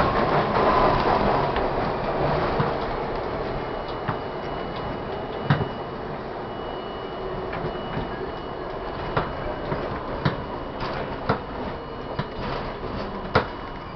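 Budd-built R-32 subway car running through a tunnel and slowing as it comes into a station. Its rumble fades steadily, and the wheels clack over rail joints at ever wider intervals.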